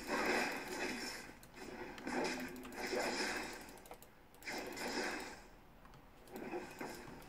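Typing on a computer keyboard: several bursts of rapid key clicks, each about a second long, with short pauses between.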